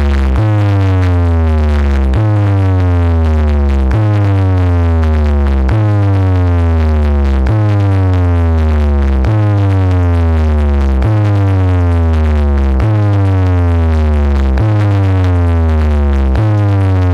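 Large DJ speaker stack playing a bass-test track very loud: a deep bass note repeating about every two seconds, each one with a falling sweep above it. It is being played to shake a stack of brass pots off a bench by bass vibration.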